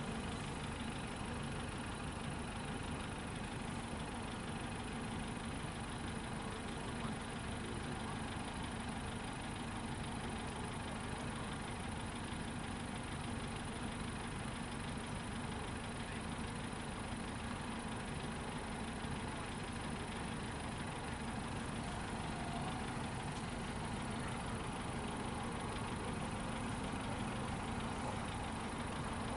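Steady, even engine hum of idling motor vehicles.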